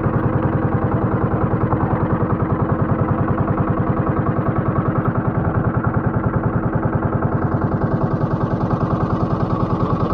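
Small fishing boat's engine running steadily with a fast, even chugging.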